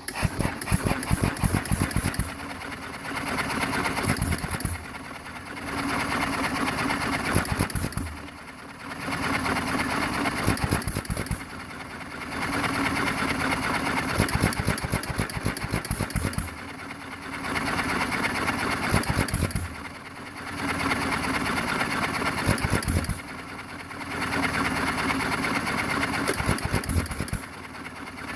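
John Deere 1½ hp hit-and-miss engine running after a rebuild, in runs of rapid firing strokes broken every few seconds by short quieter lulls as it coasts between firings.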